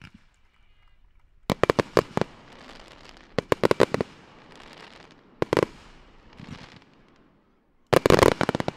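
Aerial fireworks bursting in four quick salvos of sharp bangs, about one and a half, three and a half, five and a half and eight seconds in, the last the loudest. Each salvo is followed by a fading hiss.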